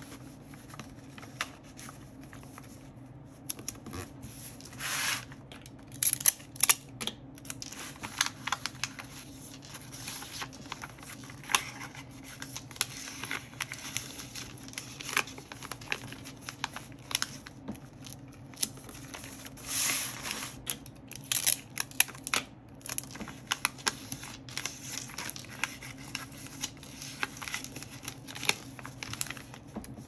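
Paper and stationery being handled while annotating a book: rustling, a few short swishes and tearing sounds, and many scattered light clicks and taps.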